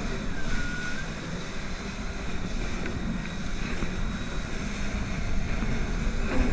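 Jet ski running under way, a steady low rumble of engine and water with heavy wind buffeting on the microphone.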